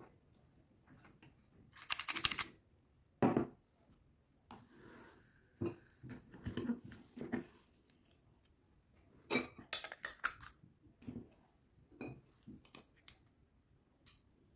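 A metal ice cream scoop scraping through firm frozen ice cream in a plastic tub, in several short rasping scrapes, with knocks and light clinks as it hits the tub and a glass bowl. The two loudest scrapes come about two seconds in and again near ten seconds.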